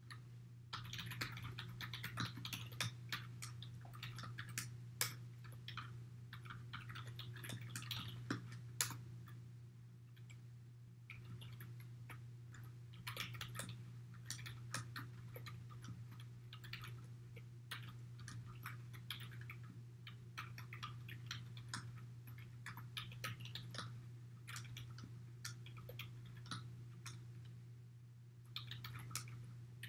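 Typing on a computer keyboard: quick, irregular keystroke clicks with a short pause about ten seconds in, over a steady low hum.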